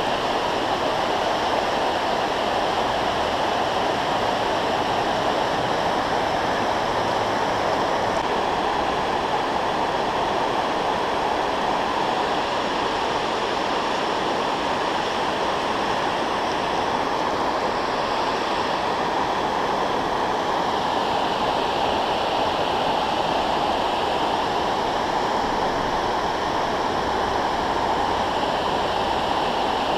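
Water pouring over a low dam spillway: a steady, even rushing that does not let up.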